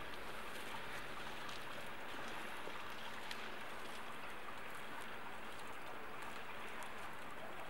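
Steady rain falling: an even hiss with scattered faint ticks of drops.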